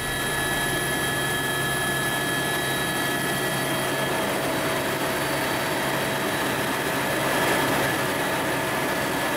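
Tour helicopter in flight, heard from inside the cabin while climbing: a steady engine and rotor drone with a few high held tones of turbine whine.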